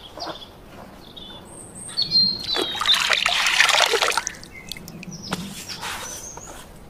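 Water splashing and trickling for about two seconds, starting about two seconds in, with small birds chirping around it.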